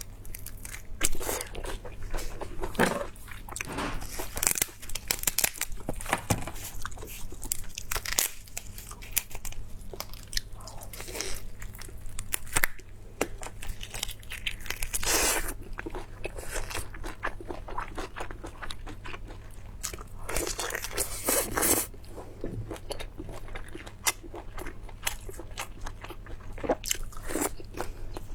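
Close-up eating sounds: a person biting and chewing food with irregular crisp crunches and wet chewing.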